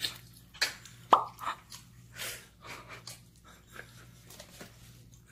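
Wet mouth noises of a man slurping and chewing a long slice of raw salmon: a string of short smacks and slurps, the loudest a sharp slurp about a second in.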